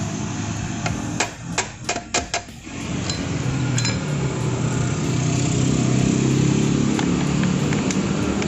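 A small hammer tapping on a metal exhaust mounting bracket: about six sharp taps in quick succession in the first two and a half seconds. A steady low mechanical drone then fills the rest.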